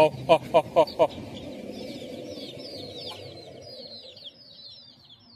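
A flock of backyard chickens close by: a quick run of about five loud, short clucks in the first second, then a stream of high, falling peeps from chicks that gradually fades.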